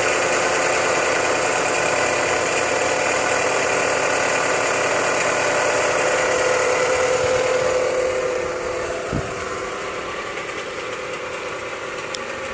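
Chrysler 200's engine running with a steady whine from the accessory drive, a sign of a bad alternator pulley. The noise gets quieter about eight seconds in, and there is one brief low thud.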